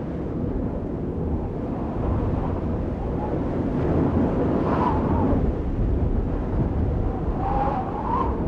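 Audience in a large hall applauding and cheering as the performance music stops, with a couple of short shouts about five and eight seconds in.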